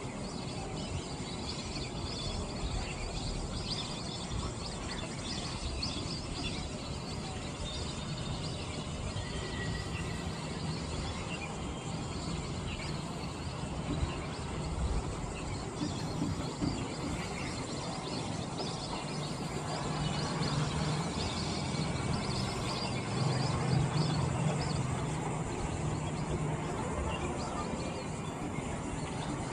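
Outdoor ambience with many scattered high chirps from a flock of birds over a steady background rumble; a low hum grows louder in the second half.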